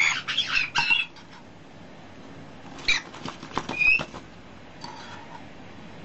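A parrot's short harsh squawks and fluttering sounds in two quick clusters, one at the start and one about three seconds in, with a fainter call near five seconds.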